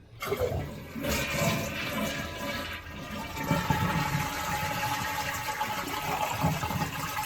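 Toilet flushing: a sudden rush of water as the tank empties into the bowl, easing near the end. The supply valve is closed, so the tank is being drained rather than refilled.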